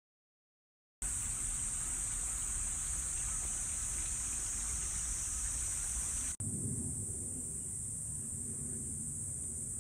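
Silent for about a second, then a steady, high-pitched insect chorus over a low outdoor rumble. It drops out for an instant at a cut about six seconds in, then carries on a little softer while the low rumble grows.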